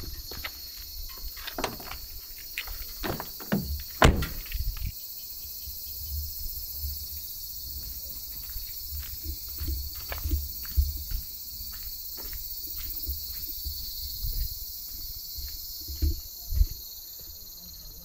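Insects chirring steadily in a continuous high-pitched drone, over footsteps crunching on gravel, sharp and close in the first few seconds, then lighter and regular. Low rumbles of wind buffet the microphone now and then.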